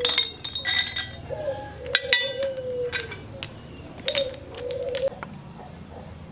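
Small metal bicycle parts clinking against each other as they are picked up and handled, in four or five short bursts of clinks.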